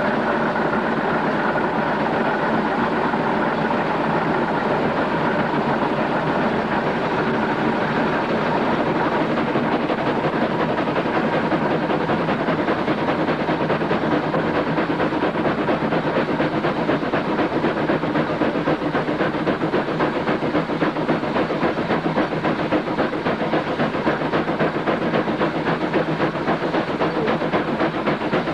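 Steam traction engine under way on the road: steady, even chuffing with a hiss of steam.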